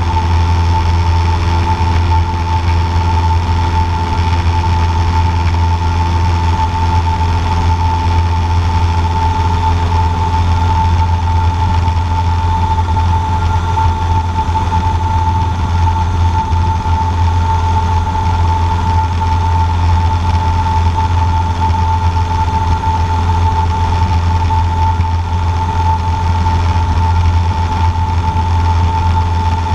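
Cessna 150J's four-cylinder Continental O-200 engine and propeller droning steadily at climb power, heard inside the small cabin, with a steady high tone riding on top.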